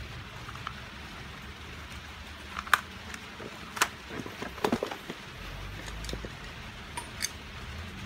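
A few sharp clicks and plastic knocks as a Kioritz chainsaw is handled and set back down on a wooden bench, the loudest cluster about midway, over a steady background hiss.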